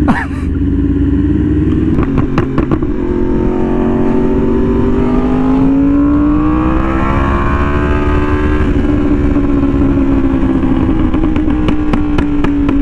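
Yamaha R1M's inline-four engine through a loud slip-on exhaust, heard from the rider's seat while cruising. The note climbs steadily under throttle, then drops suddenly about two-thirds of the way through and settles again. Short clusters of sharp exhaust pops come near the start and near the end.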